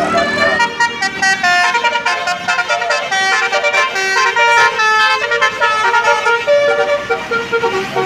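A bus's basuri melodic horn playing a tune: sustained horn notes that step from pitch to pitch, one after another.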